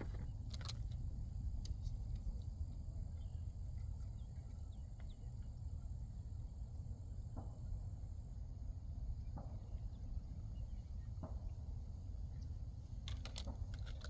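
Outdoor shoreline ambience: a steady low rumble with a faint, steady high insect drone, and a few soft scattered clicks that grow more frequent near the end.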